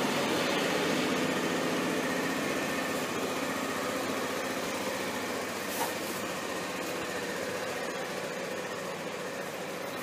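Suzuki Skywave 250 Type S scooter's single-cylinder four-stroke engine idling steadily at about 2,000 rpm, with a brief click about six seconds in.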